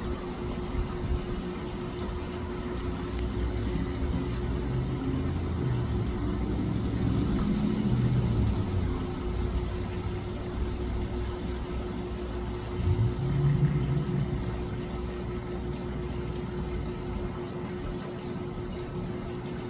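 Low rumble of vehicle traffic under a constant low hum. It swells twice, about a third of the way in and again past the middle, with a brief rise in pitch like a vehicle pulling away.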